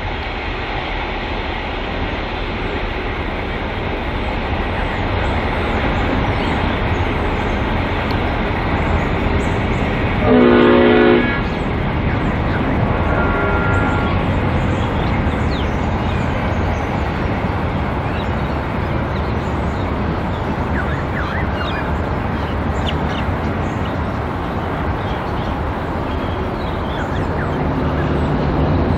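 G-class diesel-electric locomotive G532, running light engine, its engine and wheels running steadily as it approaches and draws away. About ten seconds in it gives one short blast on its chord horn.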